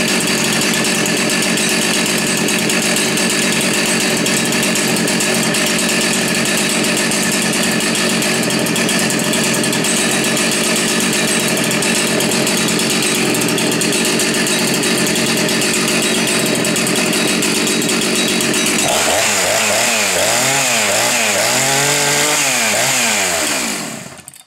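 Two-stroke chainsaw engine running steadily, then revving up and down again and again in pitch for the last few seconds before cutting off near the end.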